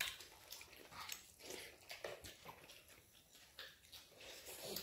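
Quiet, irregular eating sounds: chewing and mouth smacking, with hands mixing rice and curry on steel plates.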